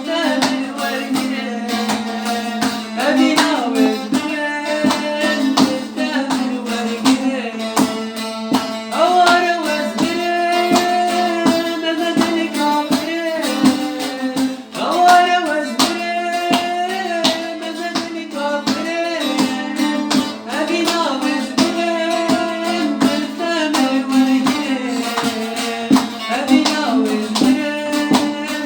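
A Kurdish song: a voice singing over plucked-string accompaniment with a steady low drone.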